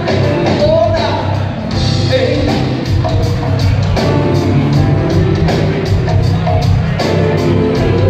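Live band playing amplified through a PA, heard from the crowd: drum kit keeping a steady beat under guitar, bass and keyboards.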